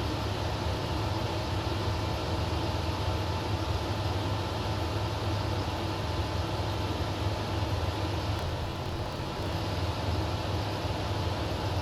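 Zenith CH-650 light aircraft in level cruise, heard from inside the cabin: a steady, unchanging drone of engine and propeller with a hiss of airflow.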